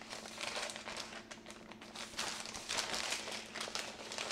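Parchment paper crinkling and rustling under the hands as it is used to roll up a sheet of pastry dough, in an irregular run of crackles that is thickest in the middle.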